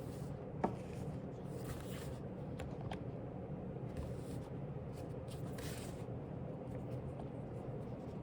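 Soft paper rustles, several times, over a steady room hum, with one small click about half a second in.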